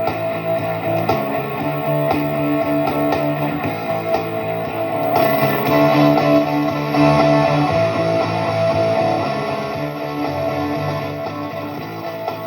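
Electric guitar phrase repeating from a looper, played through a homemade amplifier build with reverb. The tone changes as its knobs are turned and grows brighter about five seconds in.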